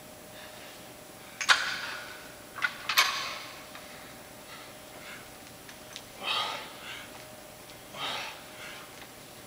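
A man breathing hard during a dumbbell exercise: short, forceful exhales every couple of seconds in the second half. Two sharp knocks come about a second and a half and three seconds in, as the dumbbell is picked up.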